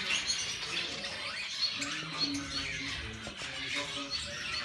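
Small pet birds chirping and twittering, many quick overlapping high chirps.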